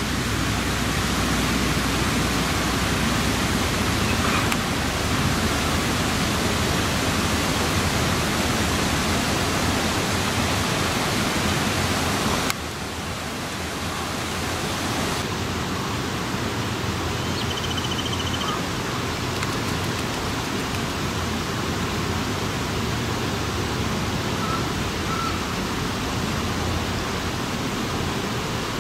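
Steady rushing noise with no distinct events, dropping a little in level about twelve and a half seconds in.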